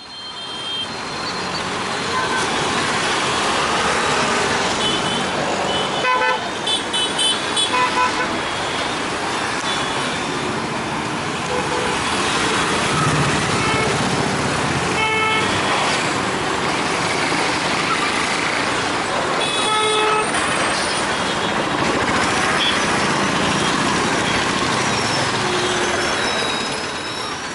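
Busy road traffic with vehicle engines running and car horns honking: a quick run of short horn beeps about six to eight seconds in, and single horn blasts around the middle and again a little later.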